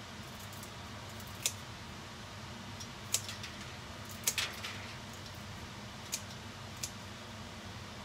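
Kitchen scissors snipping through dry bihon noodles: about six crisp, sharp snips at irregular intervals, two in quick succession near the middle. A low, steady hum runs underneath.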